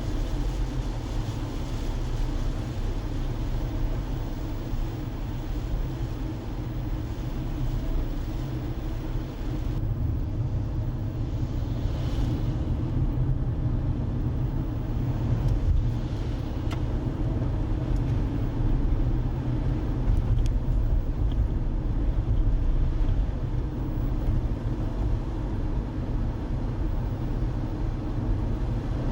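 Steady low road and engine rumble of a moving car, heard from inside the car; the lighter hiss above the rumble drops away about a third of the way through.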